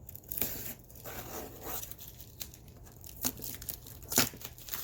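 Packing tape being torn and peeled off a cardboard box, with crinkling and rasping and a few sharp snaps, the loudest about four seconds in.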